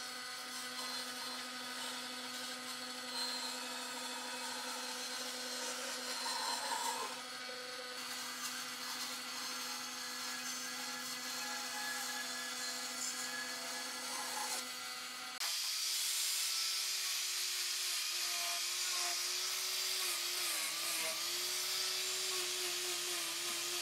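Band saw running and cutting a curved line through a wide wooden board: a steady hum with the rasp of the blade in the wood. About two-thirds of the way through it switches abruptly to an angle grinder with a sanding disc, a higher whine that wavers slightly as the disc works along the cut edge.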